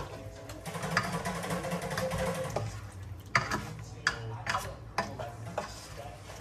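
A spoon stirring chunks of chicken and potato in a cooking pot, scraping through the food. The spoon knocks sharply against the pot several times, loudest about three and a half seconds in.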